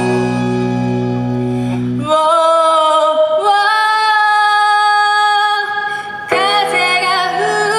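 Live pop-rock band with a female vocalist. A held low chord gives way about two seconds in to a long sung note, which steps up to a higher held note. The full band comes back in near the end.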